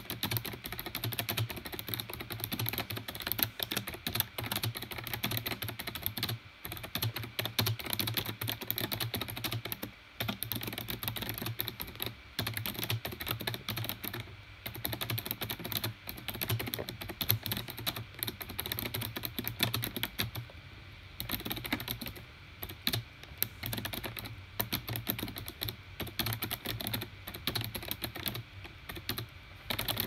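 Razer Ornata Chroma mecha-membrane keyboard being typed on quickly: a dense, continuous patter of keystrokes, broken by a few short pauses.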